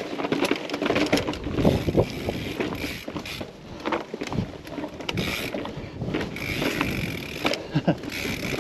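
Mountain bike being ridden over rough sandstone slickrock: the bike rattling and clattering, with many sharp knocks and clicks from tyres, chain and frame on the rock.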